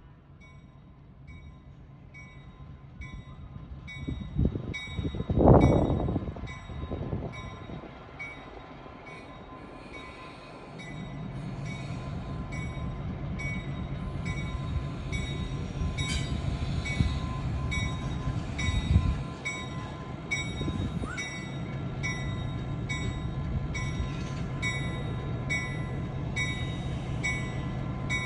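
EMD F3 diesel locomotive with its 16-cylinder 567 engine, quiet at first, then rising about eleven seconds in to a steady, louder run. A loud short burst comes around five to six seconds in. Evenly spaced high ticks, about two a second, go on throughout.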